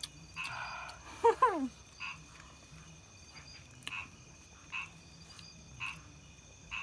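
Frogs calling, short croaks repeating about once a second. About a second in there is a louder, brief sound that falls in pitch.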